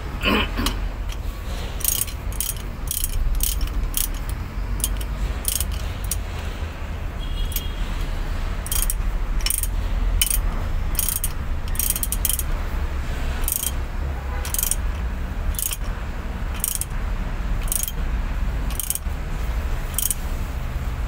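Hand socket ratchet wrench clicking in short runs at irregular intervals as bolts on a truck's ZF transmission output housing are turned, over a steady low rumble.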